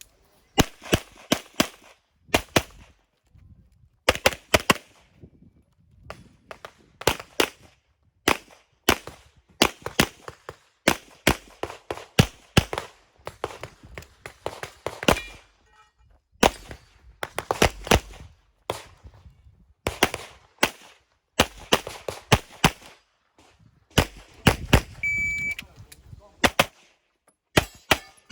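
Handgun shots fired in rapid strings, often in quick pairs, as shooters run IPSC stages. About 25 seconds in, a short high beep from the shot timer gives the start signal, and the shooting begins again at once.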